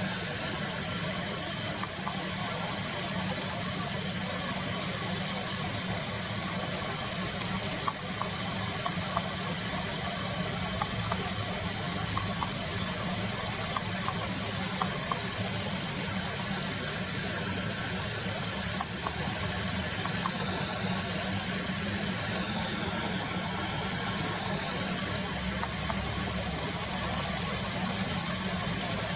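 Car engine idling steadily, heard from inside the car, with a steady high-pitched hiss above it.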